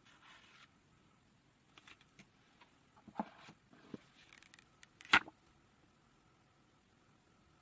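Handling of an iPhone box and its packaging: a short soft rustle, then scattered light taps and clicks, with one sharp, loudest click about five seconds in.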